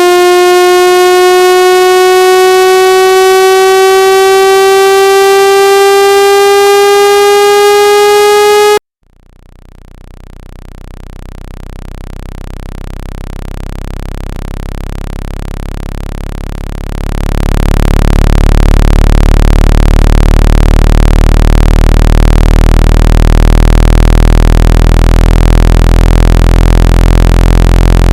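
Synthesized water-ejection tones for shaking water out of a phone speaker. A loud buzzy tone slowly rising in pitch cuts off about nine seconds in. A low buzzing tone then fades in, grows louder, steps up again a little past halfway and holds steady.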